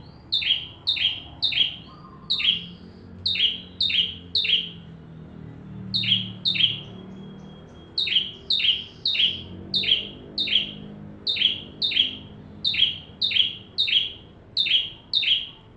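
A ciblek (prinia) calling nonstop: a rapid series of sharp, downward-swept chirps, about two to three a second, with one short pause about five seconds in.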